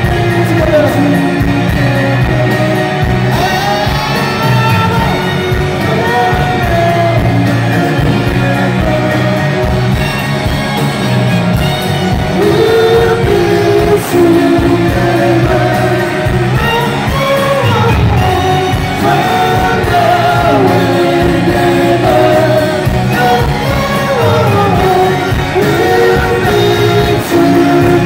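Rock band playing live and loud, with electric guitars, bass and drums and singing over them.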